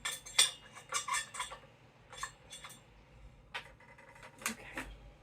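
Metal parts of a tension-mounted dance pole clinking and clanking as it is tightened with its locking bars: a quick run of clinks in the first second and a half, then single knocks spread out after.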